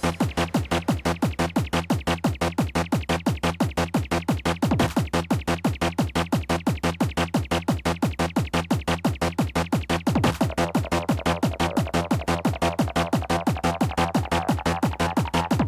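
Fast makina-style rave music driven by a relentless, evenly pounding kick drum; a falling sweep comes about five seconds in, and a fuller synth layer joins about ten seconds in.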